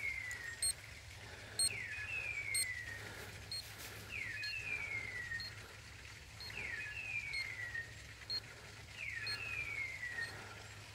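A dog's beeper collar sounding a repeated electronic call, about every two and a half seconds: a short rising chirp followed by a longer falling whistle.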